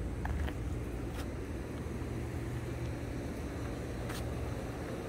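Steady low outdoor rumble of background noise, with a faint click about a second in and another about four seconds in.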